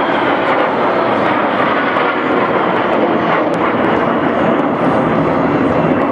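Formation of Northrop F-5E Tiger II jets flying past, their turbojet engines making a loud, steady rushing roar, with a faint high whine sinking in pitch at the start.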